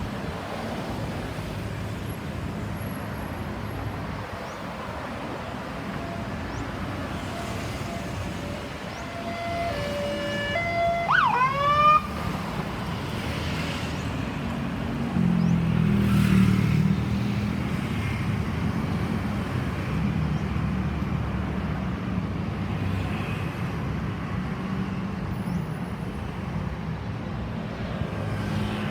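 Road traffic noise, with an ambulance's Unitrol Omega 90 electronic siren sounding briefly about ten seconds in: a few stepped alternating tones, then quick rising whoops. A few seconds later a vehicle's engine rumble passes close, the loudest stretch of the traffic.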